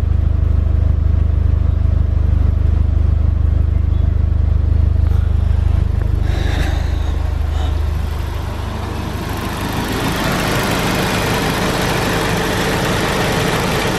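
Audi TT's turbocharged four-cylinder engine idling steadily, warmed to operating temperature. At the tailpipes it is a strong low exhaust drone. About eight seconds in it drops and gives way to a lighter, hissier engine-bay sound.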